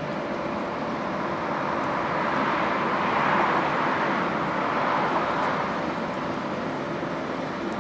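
Road traffic noise, with a vehicle passing that grows louder to a peak about halfway and then fades.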